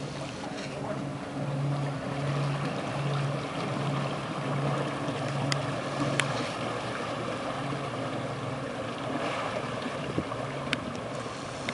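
Twin Mercruiser 5.0 MPI V8 inboard engines of a 1986 Phoenix Black Hawk 909 express cruiser running at slow idle speed as the boat motors past. The engines give a low throb that pulses about every two-thirds of a second over a steady hiss.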